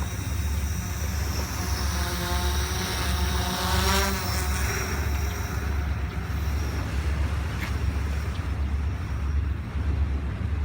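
Wind buffeting the microphone with a steady low rumble. A motor passes by, its pitch climbing to a peak about four seconds in, then fading out.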